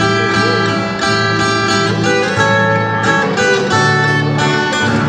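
Two acoustic guitars playing together, one picking a melody over the other's strummed chords: the instrumental introduction of a Brazilian caipira country song, before any singing.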